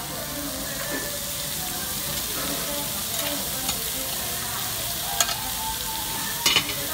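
Thin slices of beef sizzling on a hot Korean stone grill plate, a steady frying hiss broken by a few sharp ticks about five and six and a half seconds in.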